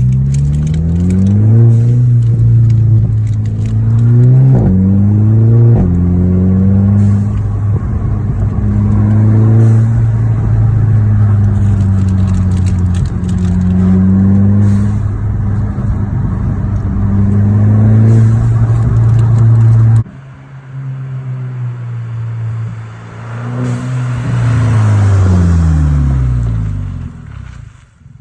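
Mk6 Golf GTI's turbocharged four-cylinder running through an open downpipe with no exhaust behind it. It pulls up through the revs with quick drops in pitch at gear changes, then holds fairly steady revs with small rises and falls. About 20 seconds in it cuts to a quieter stretch where the engine revs up once and falls away.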